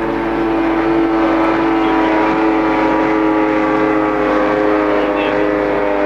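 Outboard motor of a race boat running flat out as the boat planes past at speed: a loud, steady, high engine drone.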